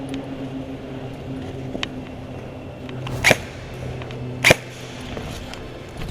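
Two sharp shots from an airsoft gun, a little over a second apart, over a steady low hum.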